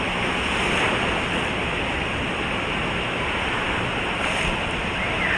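Steady rushing of water at a water park, an even roar with no single event standing out.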